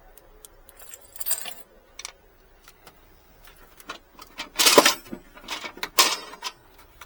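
Car keys jangling and clinking as they are handled, with scattered small clicks; two louder jangles come about four and a half and six seconds in.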